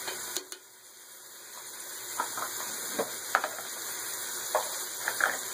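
Masala of onion, tomato, green chilli and spices sizzling in hot oil in a metal pot. A steel ladle scrapes and clinks against the pot several times as it is stirred. The sizzle dips briefly about half a second in, then comes back.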